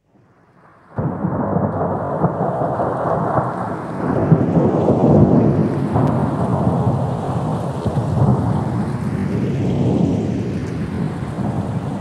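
Thunderstorm sound: a loud, steady rumble with a rain-like hiss that starts suddenly about a second in and swells and eases in slow waves.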